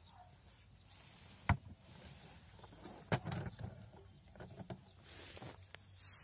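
Knocks and crackling from a homemade chipboard hand hay press as its lever is worked down to compress the hay: a sharp knock about a second and a half in, another about three seconds in followed by crackling and a few smaller clicks. Near the end, dry hay rustles as more is gathered by hand.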